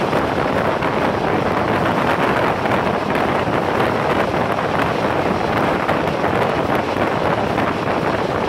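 Steady rush of wind buffeting the microphone, mixed with the running noise of a passenger train travelling at speed.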